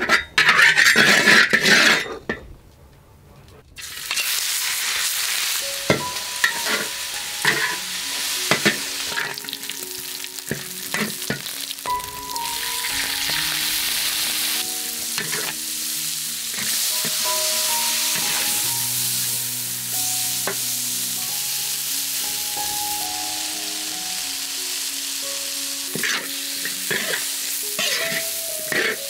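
Pork being stir-fried in a large iron wok: hot oil sizzling steadily while a metal spatula scrapes and knocks against the wok, then bracken fern fiddleheads tossed in with it near the end. A loud burst of sizzling fills the first two seconds, there is a short lull, and the frying runs on from about four seconds in.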